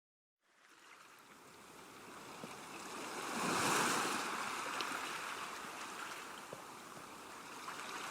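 Sea waves washing onto a beach, fading in from silence about half a second in. One wave swells and breaks about three and a half seconds in and slowly recedes, and the next starts rising near the end.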